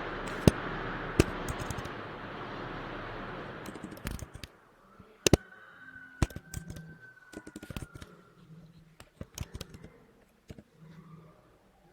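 Irregular sharp clicks and taps of a computer keyboard and mouse, over a steady hiss that fades out about four seconds in.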